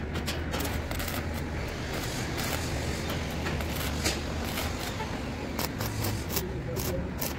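Steady low hum with scattered clicks and taps. About six seconds in, an electric arc welder crackles as it tacks the base of a wrought-iron balcony railing.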